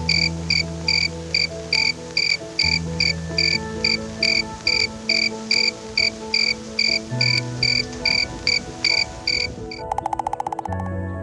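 Rhythmic high-pitched chirping, about three even chirps a second, over background music with steady low notes. Near the end the chirps stop and a fast buzzing trill takes over.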